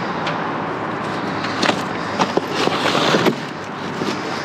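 Items being rummaged through and handled in a dumpster: a run of clicks and knocks over steady background noise, thickest in the middle.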